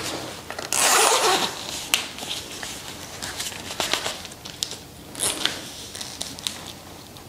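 Zipper on a black leather knee boot being pulled once, in a single zip lasting just under a second about a second in, followed by light rustles and small taps as the boot is handled.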